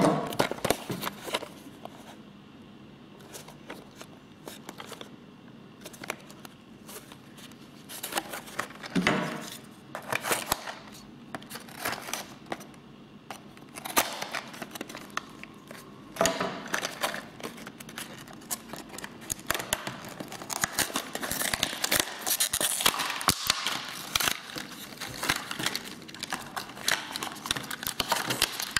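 Clear plastic blister packaging and its cardboard backing being handled and cut open with a knife, then crinkled as the toy is worked out: scattered clicks and crackles, busier in the second half.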